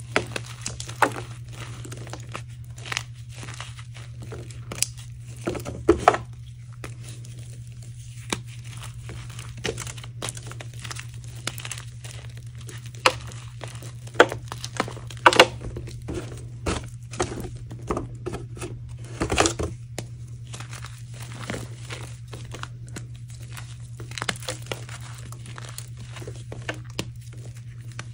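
Hands crushing and crumbling dried, hardened powder reform blocks: irregular sharp crunches and crackles, in clusters, over a steady low hum. The blocks are super crunchy from two months of drying.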